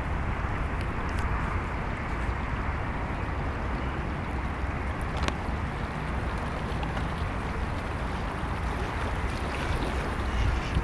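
Fast-flowing flooded river rushing in a steady wash of water noise, with wind rumbling on the microphone.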